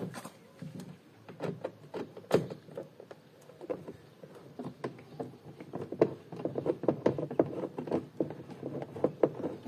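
Small clicks and taps of a T20 Torx driver working a door-trim screw loose, scattered at first and coming quicker through the second half.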